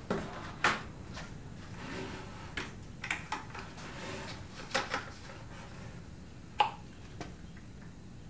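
Nested white plastic 5-gallon buckets knocking and scraping as they are gripped and lifted: a handful of short, sharp knocks spread over several seconds, the loudest about six and a half seconds in.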